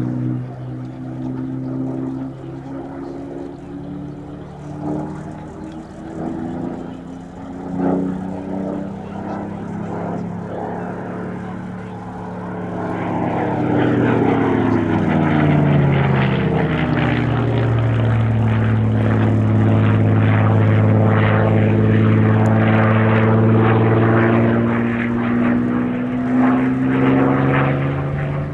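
Supermarine Spitfire PR XI's Rolls-Royce Merlin V12 engine on a display pass. The engine note is at first moderate and wavering. About halfway through it grows loud and drops in pitch as the aircraft passes, then holds as a loud, steady drone.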